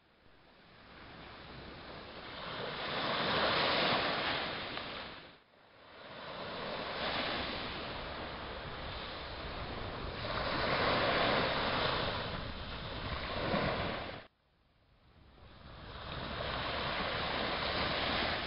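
Small waves breaking and washing up a beach, the surf rising and easing in slow surges. The sound drops away suddenly about fourteen seconds in and swells back over the next couple of seconds.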